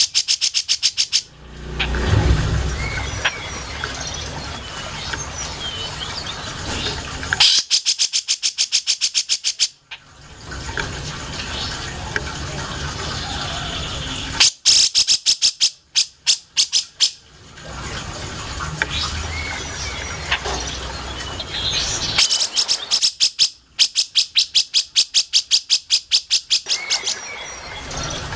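Cucak jenggot (grey-cheeked bulbul) singing. Three long, fast runs of sharp, evenly repeated high notes are separated by softer chirps.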